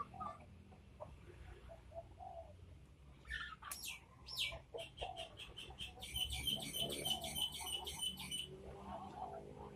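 Ayam Cemani chickens making low calls in their pen. High chirps come in: a few falling chirps about three seconds in, then a fast, even, ticking trill from about five seconds to eight and a half.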